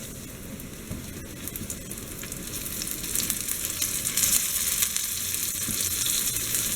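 Floured fish frying in hot oil in a large skillet: a dense crackling sizzle that grows louder about three seconds in as more fish go into the oil.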